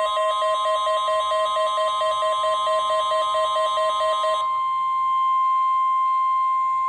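NOAA Weather Radio's steady single-pitch warning alarm tone sounding ahead of a Child Abduction Emergency (Amber Alert) message. A second, rapidly pulsing alarm tone plays over it for about the first four seconds and then stops, leaving the steady tone alone.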